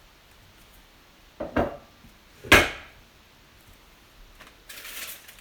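Kitchen handling noises while a pressure canner is loaded: two quick knocks, then a loud clunk with a short metallic ring about two and a half seconds in, then rustling near the end.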